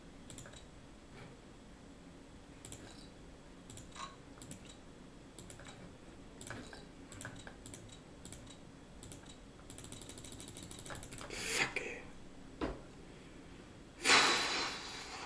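Scattered short clicks as chips are placed on the betting spots of an online live-blackjack table. About ten seconds in there is a quick run of ticks, and near the end a louder burst of noise.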